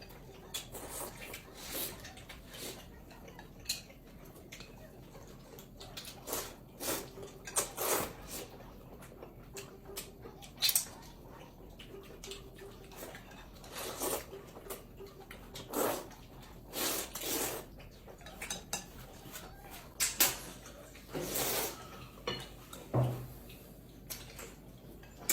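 Tableware sounds while eating: utensils clinking and scraping against bowls and plates in short, irregular clatters.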